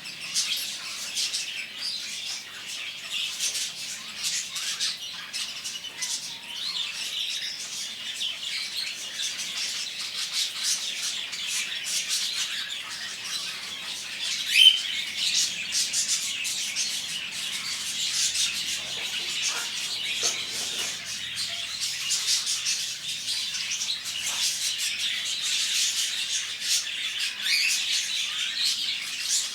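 Many caged birds in a bird shop chirping and squawking together in a dense, continuous chorus of high calls, with one louder, sharper call about halfway through.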